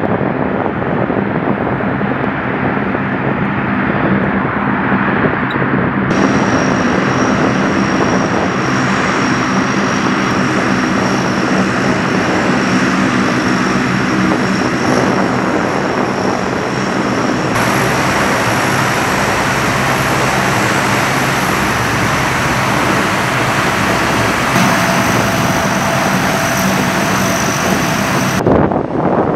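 Lockheed C-130H's four Allison T56 turboprop engines running, a steady propeller drone under a high-pitched turbine whine.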